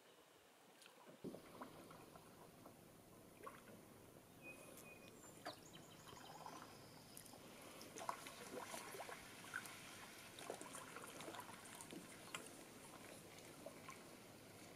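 Faint paddle strokes in calm water from a wooden canoe being paddled slowly: soft dips and splashes, with drips and small knocks scattered throughout.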